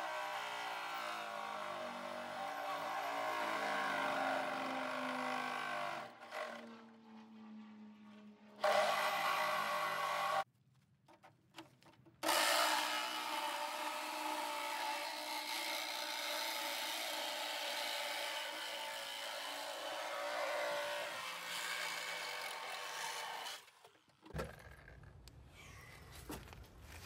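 Power tool cutting through the car body's sheet steel at the bottom of the firewall, its motor pitch shifting as it bites. It pauses twice briefly and stops near the end.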